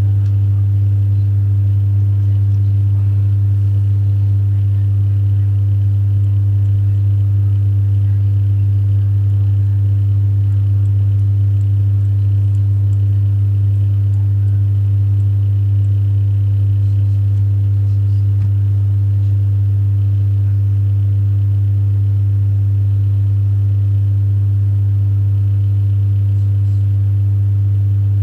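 A loud, steady low hum that does not change, with fainter higher tones above it.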